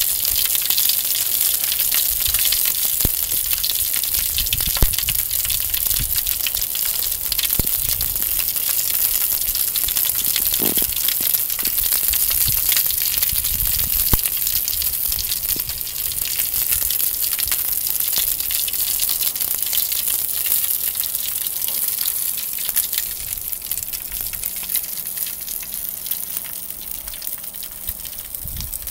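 Sausages sizzling on a disposable foil barbecue: a steady hiss of frying fat with many small crackles and pops.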